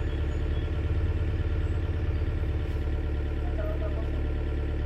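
Diesel engine of heavy log-loading equipment running steadily at low revs, a deep even throb that swells slightly about a second in.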